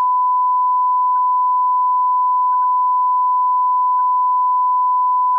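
Steady 1 kHz reference test tone played with colour bars: a single unbroken beep at one pitch that stops abruptly.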